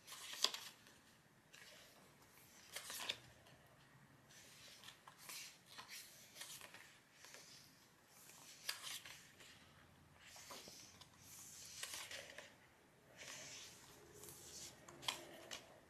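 Pages of a photo book of medium-thickness paper with a satin sheen being turned by hand: faint swishes and soft slaps of paper every couple of seconds.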